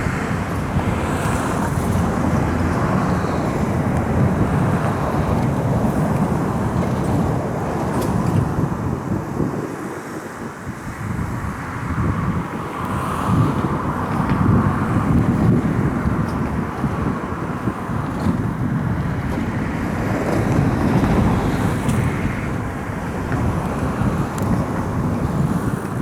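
Low outdoor rumbling noise with no distinct calls, swelling and easing several times.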